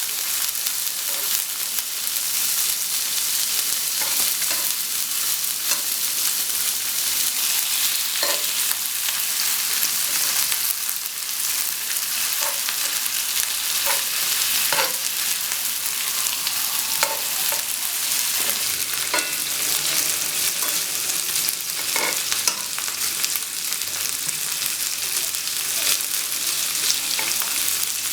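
Slices of pork belly, neck and jowl grilling: a steady sizzle of hot fat, with scattered crackles and pops throughout.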